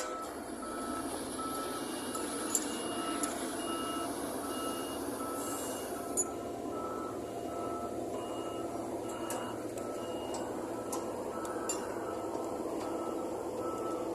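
A vehicle's reversing alarm beeping steadily, about two beeps a second, over the steady running of an engine or motor, with a few sharp clicks.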